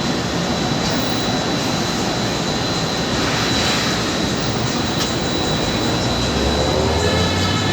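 A steady, loud engine roar, with a deeper rumble coming in near the end and a thin high tone running over it.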